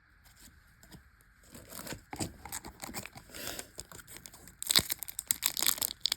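Foil wrapper of a Yu-Gi-Oh! booster pack crinkling and being torn open, faint and scattered at first, then loud and dense near the end.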